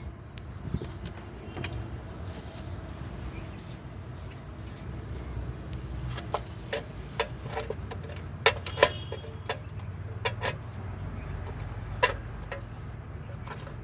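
Sharp metallic clinks and taps, about a dozen in the second half, as a clutch pressure plate and its bolts are handled and fitted onto a car's flywheel, over a low steady hum.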